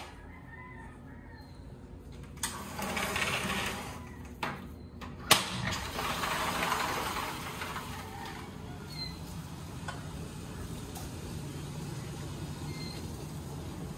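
A sliding glass door being unlatched and rolled open by hand: several clicks, a sharp snap about five seconds in, and a rolling rush as the door slides. Then steady outdoor ambience with a few faint, short bird chirps.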